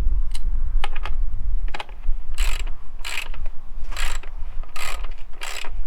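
Ratchet wrench tightening a nut: a few sharp clicks, then a run of short ratcheting rasps about every 0.8 s as the handle is swung back and forth.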